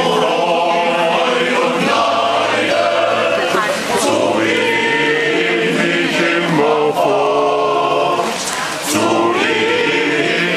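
Men's choir singing a cappella in sustained chords, with short breaks between phrases about four and nine seconds in.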